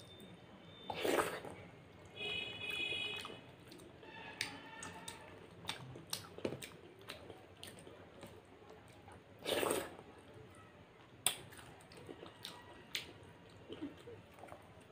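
Close-miked eating sounds: wet chewing and lip smacks from mouthfuls of moong dal khichuri eaten by hand, with many small sticky clicks, squishes of fingers mixing the soft rice and dal, and two louder noisy swishes, one about a second in and one about two-thirds of the way through.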